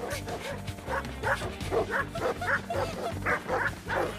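Big dogs barking in a rapid, unbroken run, about four barks a second, over steady background music.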